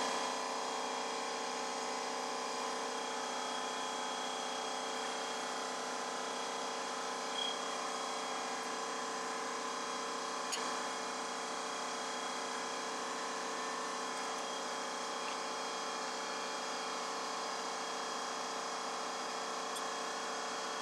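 A steady mechanical hum made of several fixed tones, unchanging throughout, with a faint click about ten seconds in.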